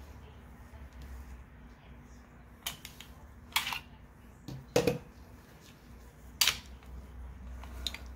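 Colt Series 70 .45 pistol being cleared by hand: a series of sharp metal clicks and clacks as the magazine comes out and the slide is locked back and let forward, with a duller knock as the magazine is set on the table. About five separate clicks, the loudest near the middle and about two-thirds through.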